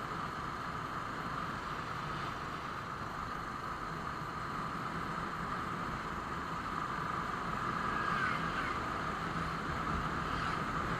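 Royal Enfield Classic 350's single-cylinder engine running at highway cruising speed, under a steady rush of wind over the microphone.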